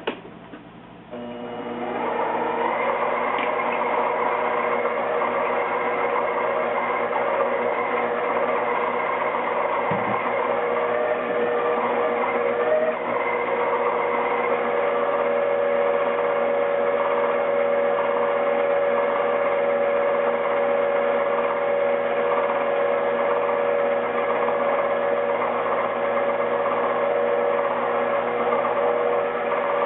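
Micromark 7x14 mini lathe switched on about a second in and running at steady speed, its motor and drive whining with several steady tones, while a freshly ground high-speed-steel tool is tried on rough stock.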